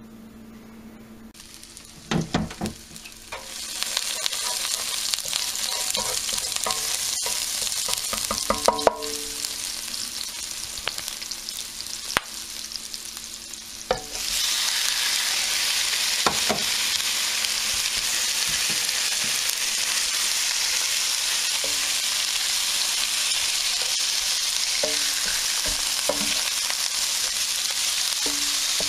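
Chopped green onions and garlic sizzling in oil in a skillet, with a few clanks about two seconds in and utensil clicks while stirring. About halfway through a louder, steady sizzle starts suddenly as raw chicken tenderloins go into the pan.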